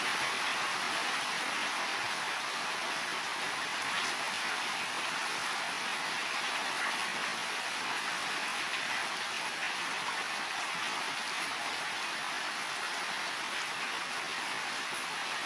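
Heavy rain falling steadily on building roofs: a dense, even hiss with faint scattered drop ticks.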